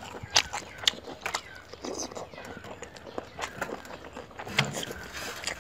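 Close-up eating sounds: chewing, wet mouth clicks and lip smacks while eating a soft rice-paper roll dipped in sauce, in many short irregular clicks.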